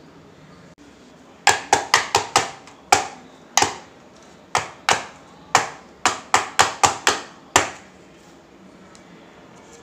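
Square metal baking tin, filled with freshly poured chocolate ganache, knocked against the countertop about fifteen times in quick irregular runs, to settle and level the mixture. Each knock is sharp with a short metallic ring; the knocking starts about a second and a half in and stops after about six seconds.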